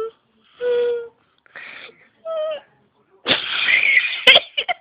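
Mini Maltese dog whining in short high-pitched cries alternating with breathy wheezes, then a longer, louder rasping noise about three seconds in that ends in a few sharp clicks.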